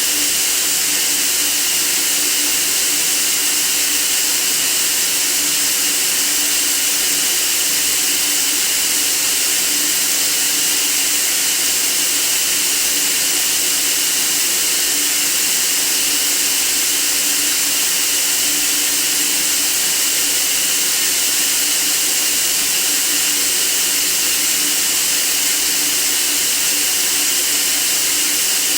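Steady white noise: an even, unchanging hiss, strongest in the high treble.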